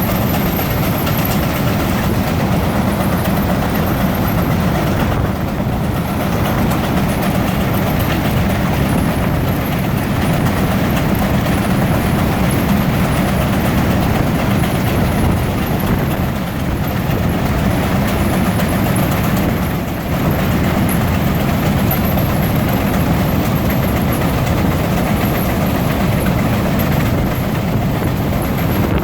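Three Frick steam traction engines (9 1/2 x 10, 8 1/2 x 10 and 9 x 10) running under belt load, driving two belt-driven fans and a power eater. The result is a loud, steady mechanical noise.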